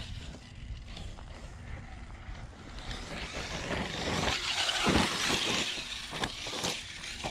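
Electric RC car driving across a gravel dirt track: motor and tyres on loose dirt, growing louder in the middle, with a sharp thud about five seconds in.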